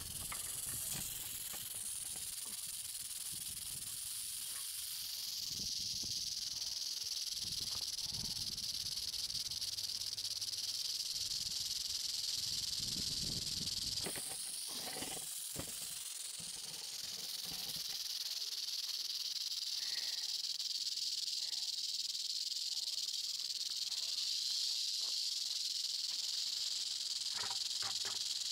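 Western diamondback rattlesnake rattling its tail: a steady, high, dry buzz that goes on without pause, with a brief break about halfway through. A low rumble sits underneath during the first half.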